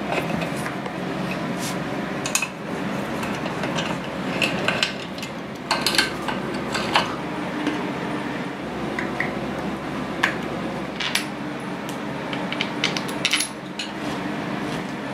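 Scattered light metallic clicks and clinks of hand tools on a steel motorcycle frame: a tap wrench turning a thread tap into the bracket, then parts and a screw being fitted, over a steady hiss.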